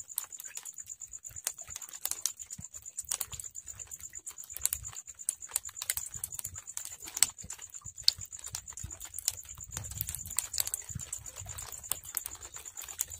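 Irregular light clicks and taps of a gill net being hauled in by hand over a boat's bamboo rails, with a steady high-pitched whine behind.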